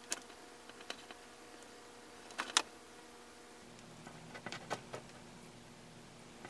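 Scattered small clicks and taps from handling electrical wire and hand tools at the stereo's wiring, the loudest a quick double click about two and a half seconds in.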